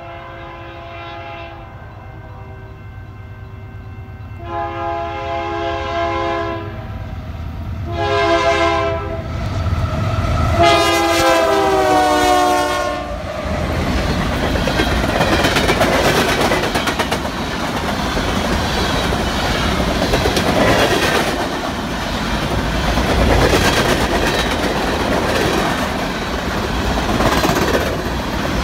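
BNSF freight locomotive's multi-chime air horn sounding four blasts, long, long, short, long (the grade-crossing signal), the last blast dropping in pitch as the locomotive passes. Then the lead locomotives rumble by close, followed by coal hopper cars with wheels clicking over the rail joints.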